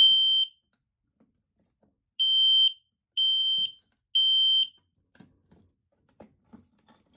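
Gentex Commander 1 fire alarm horn sounding a code-3 temporal pattern, slightly slower than usual: one high beep at the start, a pause, then three more beeps about a second apart, after which it stops. Faint clicks and knocks follow as a key works the Notifier BNG1 pull station's lock to reset it.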